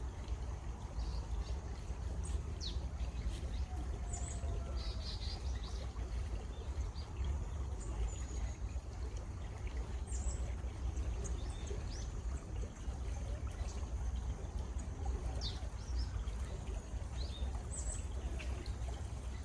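Running water with birds chirping on and off over it: scattered short high chirps and a few quick sweeping calls.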